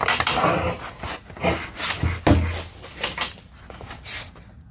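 Folding camp table being handled and folded: irregular knocks, clatter and rustling, with a heavier thump about two seconds in.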